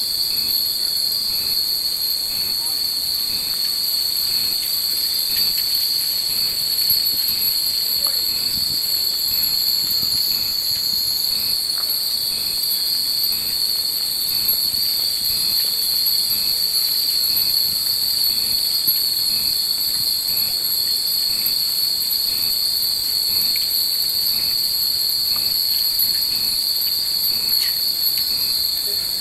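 Chorus of cicadas calling in the trees: a loud, steady, high-pitched drone, with a fainter pulsing call repeating about once a second beneath it.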